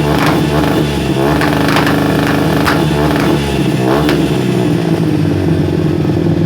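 Honda Bros 150 single-cylinder four-stroke engine through an aluminium exhaust, revved in repeated quick throttle blips with sharp pops. It settles into steadier running for the last couple of seconds.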